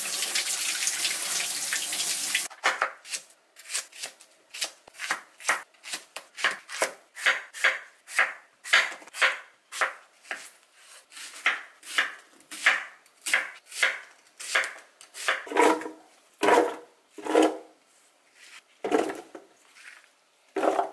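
Tap water running over an onion being rinsed in a steel sink for about two and a half seconds, then a chef's knife cutting apple on a wooden cutting board, single chops about one to two a second. The last few knocks are deeper and heavier.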